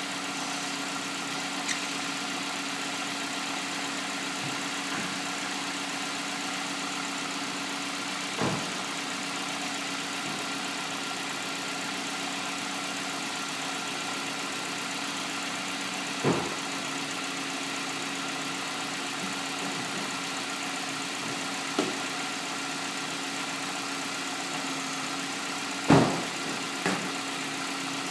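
2008 Hyundai Elantra idling steadily, with a short sharp knock or clunk every few seconds at irregular intervals, the loudest near the end: the unexplained weird noise the owner is after.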